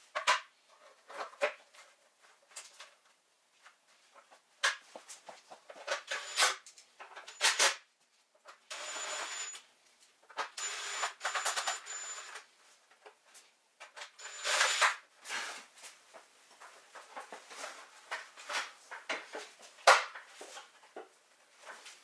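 Ryobi cordless driver running in several short runs with a steady whine, driving screws into the plastic internal mudguard, among clicks and knocks of the plastic parts being handled.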